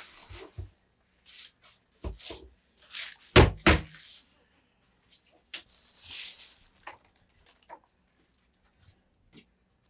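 Green onions rustling as they are handled in a plastic tub, with dull knocks of a plastic mesh basket: a few thuds about two seconds in and two loud knocks about three and a half seconds in, then a brief rustle of scattering about six seconds in and a few faint ticks.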